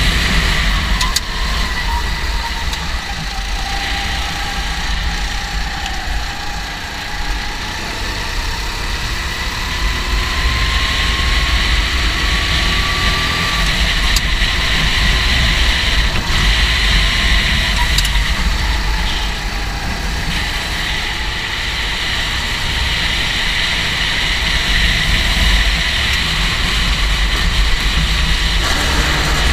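Go-kart engine running, its pitch slowly falling and rising as the revs change, over a steady low rumble.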